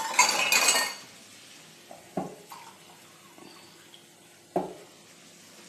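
Wooden spatula scraping and stirring thick tomato-onion masala in a nonstick frying pan for about a second, then a couple of faint knocks of kitchenware.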